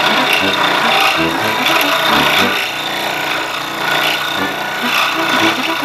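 Woodworking tools working wood, with rasping and sanding sounds running on without a break.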